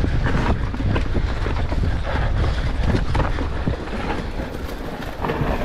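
Electric mountain bike descending a rough forest trail: wind rushing over the camera microphone, knobby tyres rolling over dirt, leaves and rocks, and frequent knocks and rattles from the bike's frame and suspension.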